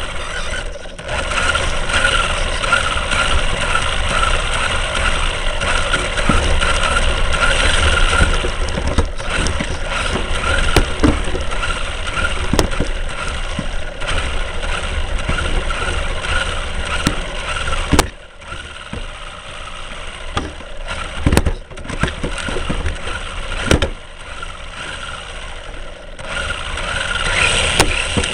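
Vehicle on the move, heard from inside: steady engine and road noise with a low rumble, and a few sharp knocks in the second half.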